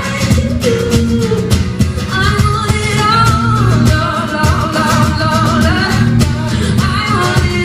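Live acoustic pop performance: a woman singing, her voice wavering with vibrato on held notes, over strummed guitar accompaniment with a steady beat.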